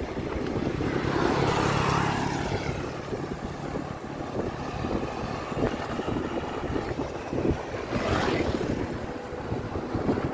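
Wind buffeting the microphone of a camera on a moving mountain bike, a steady rumble and flutter. A motor vehicle swells past about a second in with a brief engine hum, and oncoming motorcycles go by around eight seconds in.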